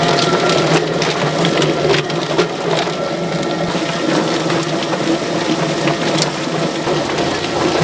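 Electric poultry plucker running with a scalded bird inside: a steady motor hum under a dense clatter of the spinning rubber fingers beating off feathers.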